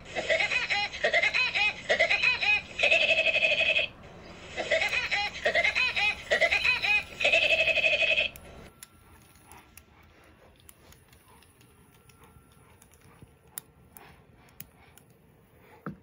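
Woody Woodpecker's trademark cartoon laugh, heard twice: each time a quick run of rising-and-falling 'ha' notes ending on a long held high note. Faint scattered clicks follow.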